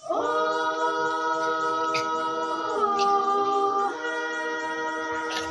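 A group of women singing a Naga folk song a cappella, several voices holding long notes together in harmony. Near the middle the chord drops lower, then rises back about a second later.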